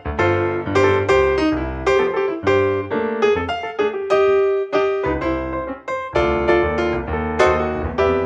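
Jazz-blues background music led by piano, with chords struck about twice a second, each fading before the next.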